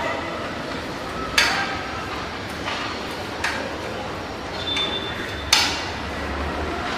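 Sharp metallic knocks and clinks of installation tools and parts being handled: three louder knocks about two seconds apart, with smaller clinks between, over a steady low hum.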